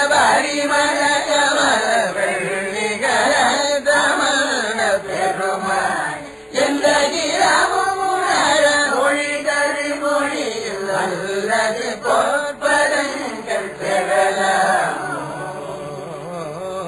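Tamil devotional hymn sung in Carnatic style: a voice drawing out long, gliding notes over a musical accompaniment, fading out near the end.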